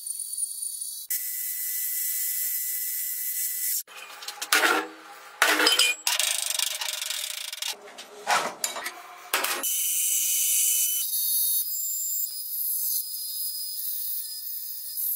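Metal lathe cutting steel: a steady high hiss of the tool with a thin machine whine. In the middle, a few seconds of sharp knocks and clatter as metal parts are handled and set down on a steel workbench.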